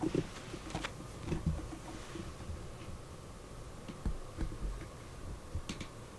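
Faint scattered clicks, soft rustling and a few light thumps as a kitten moves about and is handled on a rug.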